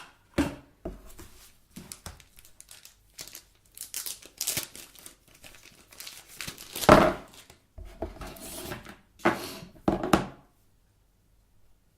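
Packaging crinkling and tearing as it is handled and pulled open, in irregular rustles and rips, the loudest about seven seconds in; it stops about ten and a half seconds in.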